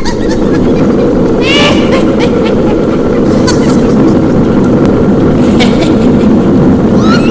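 Horror sound effect: a steady low rumble of a brewing cauldron, with high-pitched witch cackles cutting in about a second and a half in and again near the end.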